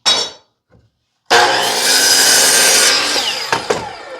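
Short knock, then an electric power saw cutting wood. The cut starts abruptly a little over a second in and lasts about a second and a half, then the motor winds down with a falling whine.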